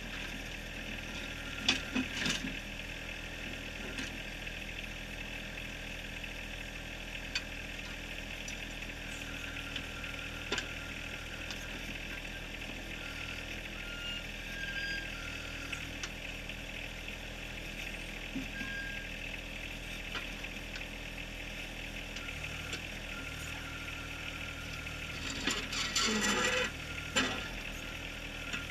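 John Deere 1023R compact tractor's three-cylinder diesel running steadily under backhoe work, with scattered clicks and knocks. Near the end comes a louder, rougher stretch of knocking, typical of the bucket striking rock.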